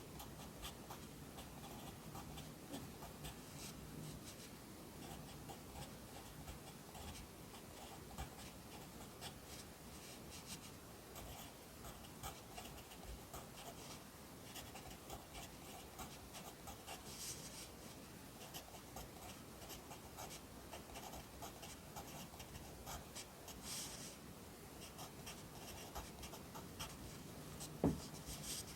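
Pencil writing Korean characters on paper: a continuous run of short scratching strokes and light taps of the point, with one sharper knock near the end.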